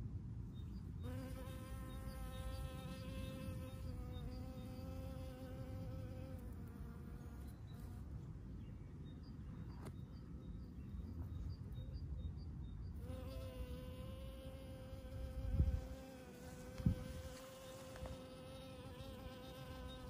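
Honey bee buzzing in flight close to the microphone, a steady drone that comes in about a second in, fades out for several seconds in the middle and returns. A low rumble runs underneath, with two brief low thumps near the end.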